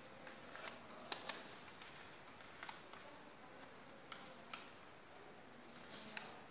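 A sheet of A4 paper being folded and creased by hand against a tabletop: faint rustling broken by short, sharp paper crackles, the loudest pair about a second in.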